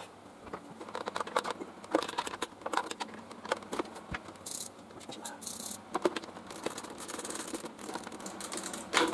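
Irregular light clicks and taps of small hardware and hand tools being handled while a turn-signal mounting bolt is fitted, with two brief hisses about halfway through.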